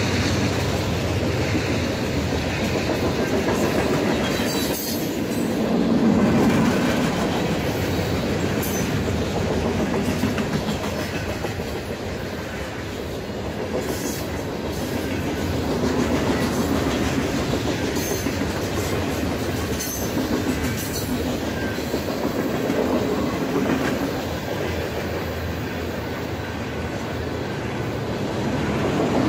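Freight train cars rolling past close by: a steady rumble of steel wheels on the rails, with sharp clicks as the wheels cross rail joints. The loudness swells and eases as the cars go by.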